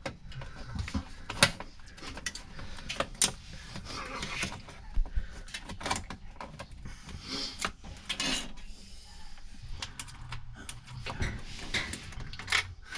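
Scattered clicks, knocks and rustling from hands working a dryer vent duct and its clamp onto the vent connection.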